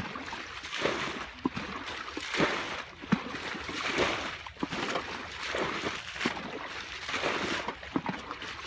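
Muddy water sloshing and splashing as it is scooped up in a bucket and a basin and poured out onto the bank, over and over, in irregular splashes about once a second: a small pond being bailed out by hand.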